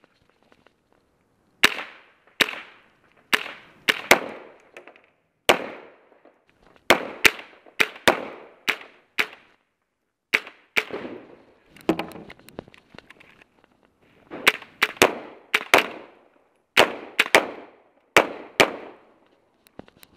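Semi-automatic gunshots fired one after another at an uneven pace, about one to two a second with some quick doubles. Each shot is a sharp crack with a short echo, and there is a pause of about two seconds a little past the middle.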